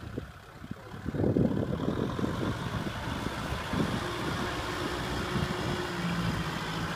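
Tractor diesel engines running steadily while a Kubota tractor is stuck in deep paddy mud, with low buffeting gusts about a second in.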